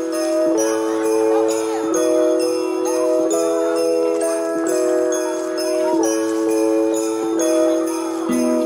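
Christmas music with sleigh bells shaking on a steady beat over held chords that change every second or so.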